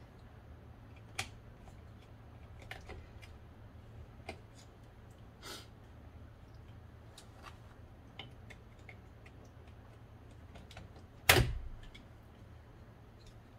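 Scattered light clicks and taps of plastic and metal parts being handled while fitting a car door latch assembly, over a steady low hum, with one sharp, loud knock about eleven seconds in.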